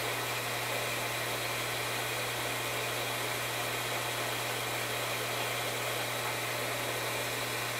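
Horizontal-spindle surface grinder running, its wheel spinning: a steady, even hum and whir that doesn't change.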